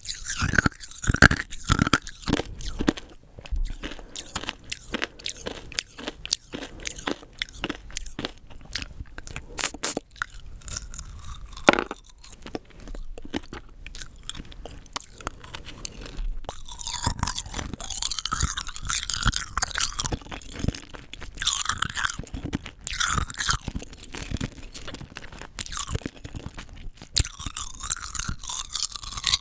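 Rock candy crunched and chewed close to the microphone: many sharp cracks of hard sugar crystals breaking between the teeth, giving way about halfway through to denser, wetter chewing.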